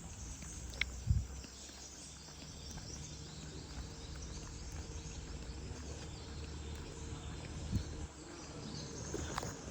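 Low steady rumble of a car moving slowly, with two soft thumps about a second in and near the end, and faint high chirping in the background.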